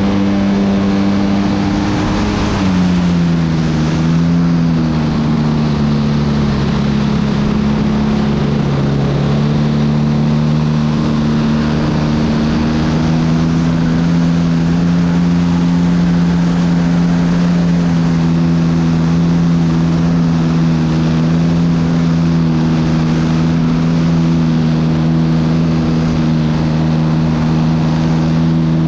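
RC model airplane's nose-mounted engine and propeller running in flight, heard from an onboard camera as a steady buzzing drone over wind rush. The drone drops in pitch about two and a half seconds in, then holds steady and rises slightly around the middle.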